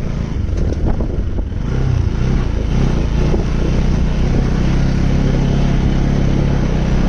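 Vehicle engine running steadily while driving along a rough dirt track, with road and wind noise; the engine note rises a little about two seconds in.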